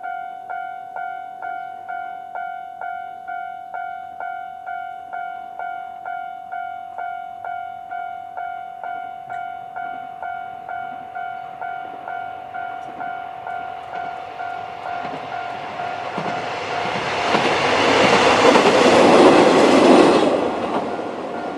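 Japanese level-crossing electronic alarm ringing in a steady two-tone ding at about two strikes a second, its normal alarm sound. Partway through, a Kanto Railway Kiha 2200-series diesel railcar passes over the crossing, rising to a loud rush of wheels on rail and fading out shortly before the end while the alarm keeps ringing.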